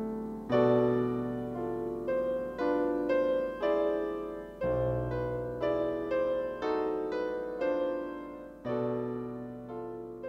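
Slow solo piano music. Deep bass chords sound about every four seconds, with single melody notes struck between them, each note dying away.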